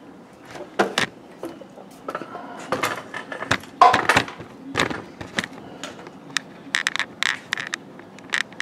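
Irregular clicks, knocks and light metallic clatter of hands handling small parts and the camera, the clicks coming closer together near the end.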